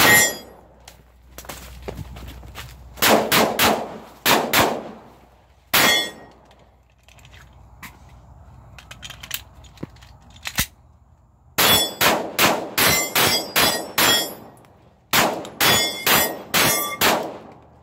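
Glock 19 9mm pistol fired in fast strings, with hits on a steel gong ringing out with a metallic clang. One shot, then a quick group of about half a dozen shots a few seconds in, a pause of several seconds for a reload, then two long rapid strings from about twelve seconds in.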